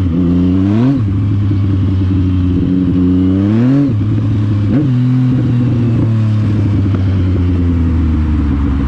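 Yamaha MT-09's three-cylinder engine accelerating through the gears. The pitch climbs, drops at a gear change about a second in, climbs again and drops at another shift near four seconds, then holds steady at cruising speed.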